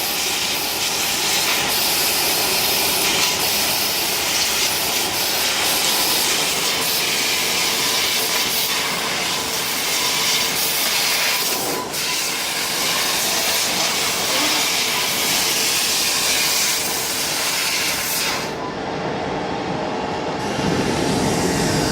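Fiber laser cutting machine running: a steady hiss with a faint steady hum under it. The highest part of the hiss drops away about two-thirds of the way through.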